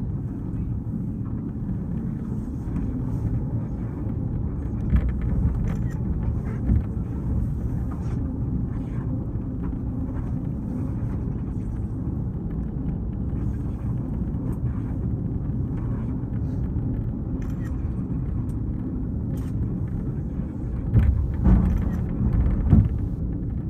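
Cable-hauled funicular car running up its incline, a steady low rumble heard from inside the car, with a few louder bumps, most of them near the end.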